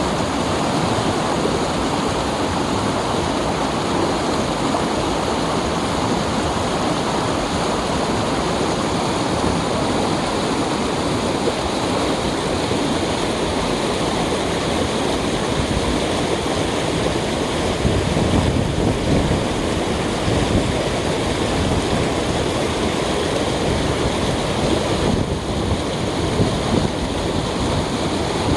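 Valley stream water flowing steadily: an even, unbroken rush of running water.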